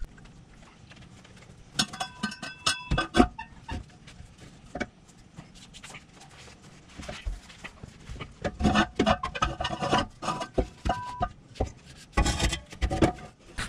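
Replacement steel muffler and exhaust pipe clanking and scraping against the underside of a pickup truck as it is worked up into position to be hung. There is a cluster of sharp metallic knocks with ringing tones about two to three seconds in, and a denser run of clanks through the last five seconds.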